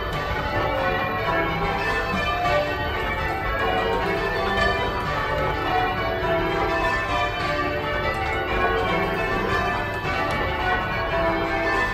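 Church bells being rung in changes, a heavy ring whose tenor weighs 30 cwt and is tuned to D: a continuous, even stream of overlapping bell strokes, heard from the ringing chamber below the bells.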